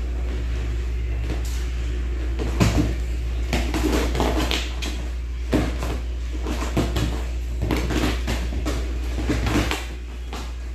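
A cat's claws scratching and tapping on a leather sofa as it paws at a dangling cord, heard as a string of irregular clicks and knocks. A steady low hum runs underneath and drops a little near the end.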